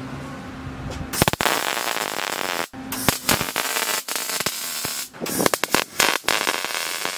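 MIG welder crackling as it lays short stitch welds joining a universal sheet-metal wheel-arch flare to a car's rear quarter panel. The crackle starts about a second in and comes in several runs broken by brief pauses.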